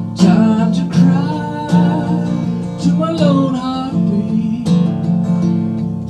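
Cutaway acoustic guitar strummed in slow chords. A man's voice sings a wavering line over it through the first half or so.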